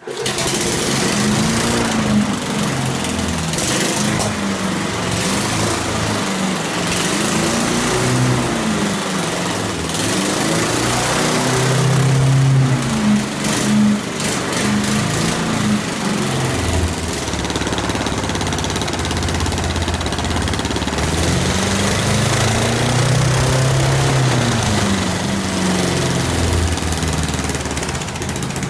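Tuned Motek 400 lawn mower engine running loud, revved up and down repeatedly every couple of seconds.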